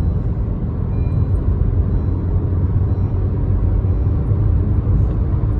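Steady low rumble of a car on the move: a Honda Vezel's road and engine noise.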